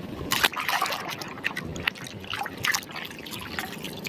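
Water splashing and trickling as muddy toy buses are washed by hand, with irregular small splashes and drips.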